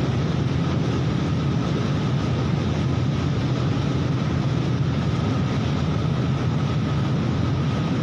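Snow avalanche pouring past a concrete avalanche gallery, heard from inside it: a steady, deep rumbling rush that does not let up.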